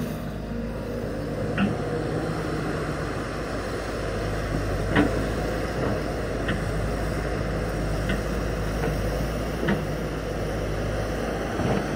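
SANY hydraulic crawler excavator working: its diesel engine runs steadily under load while the arm and bucket dig and swing, with several short metallic clanks scattered through.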